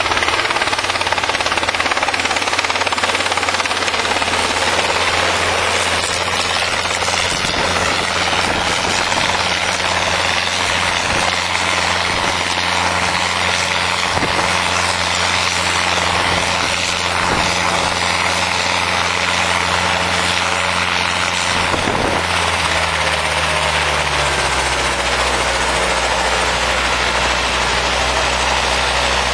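Helicopter running steadily. About 22 seconds in its engine note drops in pitch and settles at a lower, steady speed.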